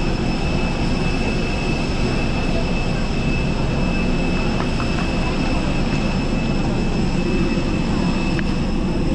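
Steady engine rumble on an airport apron with a constant high-pitched whine over it, heard from inside a passenger bus.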